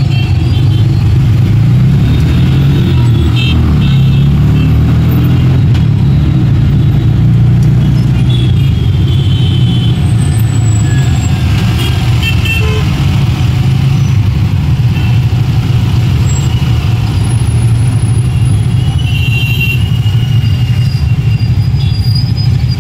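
Heavy city road traffic close by: a loud, steady low engine rumble, with vehicle horns tooting briefly several times.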